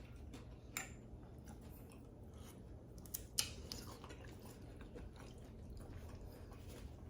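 Faint chewing and eating of a seafood boil, with two sharp clicks, one about a second in and one near the middle, over a low steady hum.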